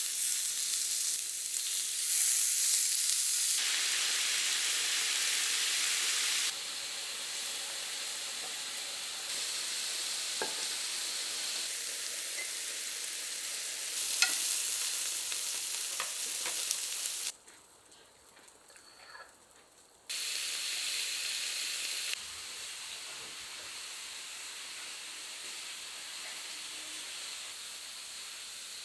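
Food sizzling in a frying pan as it is stirred, with scattered clicks of a utensil against the pan. The sizzle changes level abruptly several times and drops away for about three seconds a little past the middle.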